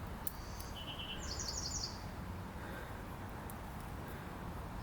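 A small bird's short, rapid chirping trills about a second in, over a steady low rumble of outdoor background noise, with a few faint clicks.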